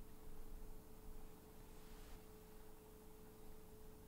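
Near silence: quiet room tone with a faint steady hum.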